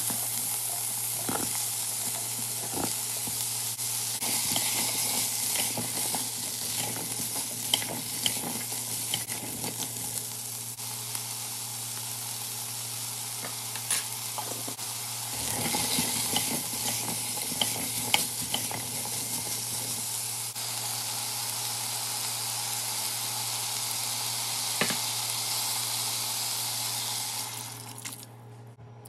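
Vegetables sizzling in hot oil in a stainless steel pot while being stirred with a silicone spatula, a steady hiss with scattered scrapes and knocks. The sizzling dies down near the end as water is poured in.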